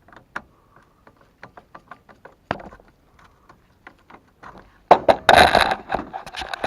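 Handling noise from hand work on furnace wiring: scattered light clicks and taps, then about five seconds in a louder stretch of rustling and scraping lasting about a second.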